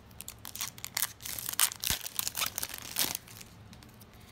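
Foil booster pack wrapper crinkling and tearing as it is ripped open, a rapid run of crackles.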